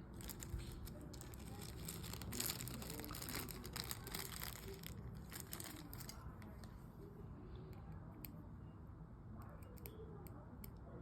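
Light clicks and scratchy scraping of a precision screwdriver working at tiny screws in an opened iPhone, busiest in the first half and sparser later.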